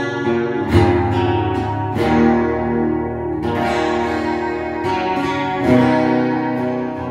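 Gibson Hummingbird acoustic guitar strummed in full chords. Each chord rings on, and a new strum comes every second or so.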